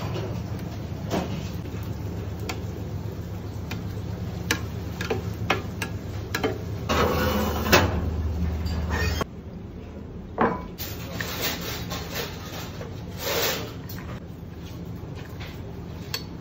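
Kitchen handling sounds: scattered knocks and rubbing as raw fish pieces are moved about on a wooden cutting board and a tray is handled, over a steady low hum that stops abruptly about nine seconds in.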